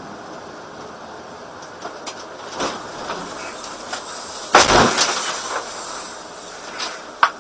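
Steady road and engine noise inside a heavy vehicle's cab, then about four and a half seconds in a loud crunching impact as it rear-ends an SUV, with a short sharp knock near the end.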